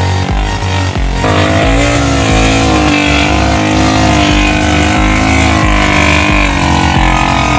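The engine of a three-wheeled cargo motorcycle with an MX engine, running under throttle. It comes in strongly about a second in, and its pitch rises and falls.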